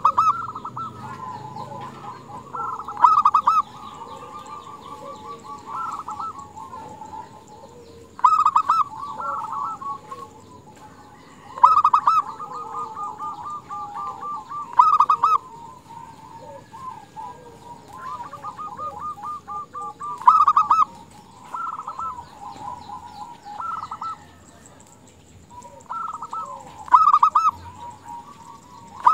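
Female zebra dove (perkutut) calling: rapid rattling, stuttering coos, rising to louder bursts about every three to six seconds with softer trilling between.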